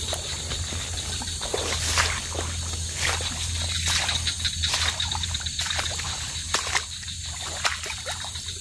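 Footsteps pushing through wet grass and swampy mud, with irregular rustling and crackling of stems, over a steady high chorus of night insects.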